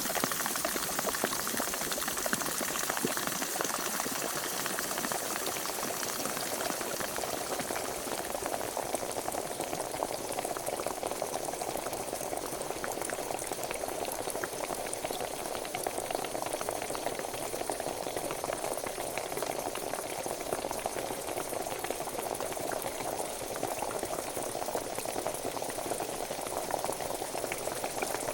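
Pot of water at a rolling boil, a steady dense bubbling and popping. About eight seconds in the bubbling turns lower and fuller.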